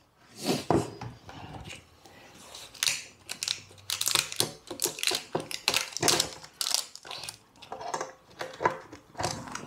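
Irregular crinkling and light plastic clicks from a multicooker's plastic lid being handled around its steam-release valve and the paper label beneath it, sparse at first and busier after about two and a half seconds.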